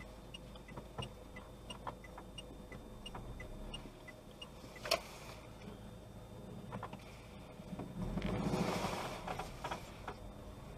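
Two small cars, a Renault 5 and a Volkswagen Polo, pass close by on a dirt track, their engines and tyres on the dirt rising to a peak about eight seconds in and then fading. A light, regular clicking runs underneath, with one sharper click about halfway through.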